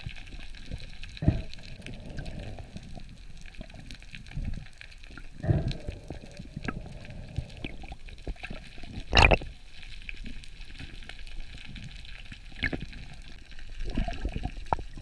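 Muffled water noise heard underwater through a waterproof camera housing, with a few sharp knocks scattered through it. The loudest knock comes about nine seconds in.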